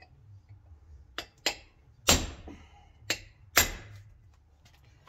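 Ball-peen hammer striking a chisel against the hardened steel inner race of an old differential bearing, cracking the race to get it off the shaft without a press. Five sharp metallic blows with a short ring, the third and fifth the loudest.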